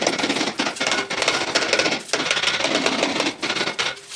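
A hand rubbing over glazed ceramic wall tiles, a continuous fast scratchy scrubbing that eases off near the end.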